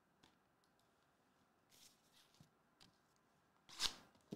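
Faint clicks and light rustles of hands handling a shrink-wrapped trading card box, with one short, louder plastic rustle near the end.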